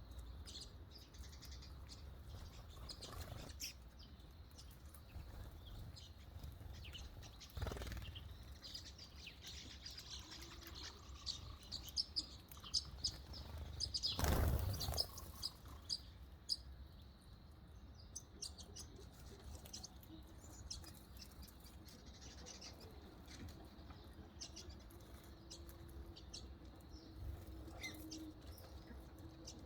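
Small birds chirping with many short, high calls, over a faint low rumble. About halfway through a brief, louder rustling burst, with a smaller one about a quarter of the way in.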